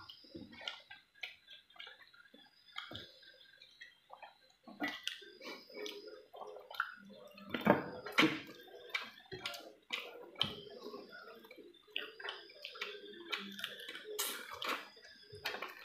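Eating by hand: chewing chicken curry and rice, with irregular mouth smacks and clicks and the fingers working the rice on the plate.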